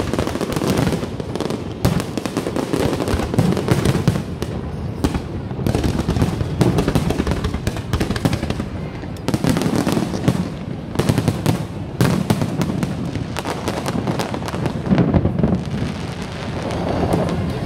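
A fireworks display: shells bursting and crackling in rapid, overlapping bangs, thinning out near the end. Music plays underneath.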